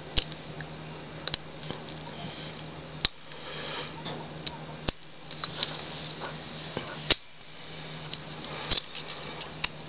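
Lock pick and tension wrench working the spool pins of a brass U-Haul padlock: light metallic scraping with scattered sharp clicks, over a faint steady hum.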